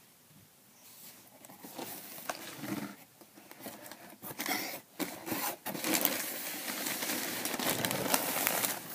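Cardboard shipping box being handled and its flaps opened, then plastic packaging rustling and crinkling as the wrapped contents are pulled out. The crinkling is dense and loudest over the last three seconds.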